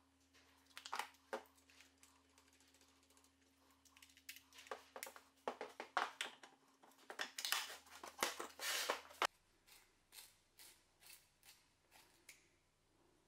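Plastic tool-case parts and metal fittings being handled: a string of irregular clicks, taps and rattles, busiest in the middle, over a faint steady hum that cuts out about nine seconds in. After that comes a run of lighter ticks, about two a second.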